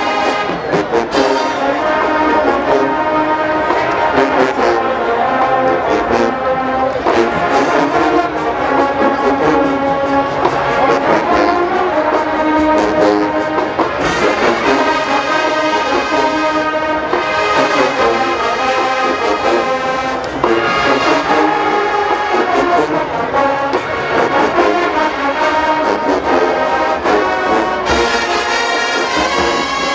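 HBCU marching band's brass section playing a slow R&B ballad arrangement, trombones and trumpets holding full sustained chords.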